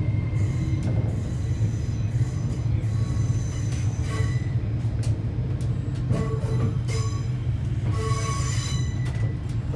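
Inside a Hitachi AT300 electric train (LNER Azuma) pulling away slowly: a steady low rumble with a thin steady whine. Short high-pitched wheel squeals come several times as it runs through points.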